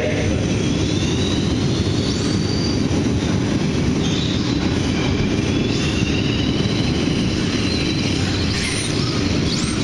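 Radio-controlled race trucks running laps on a dirt oval: high motor whines rise and fall as the trucks pass over a steady dense rumble.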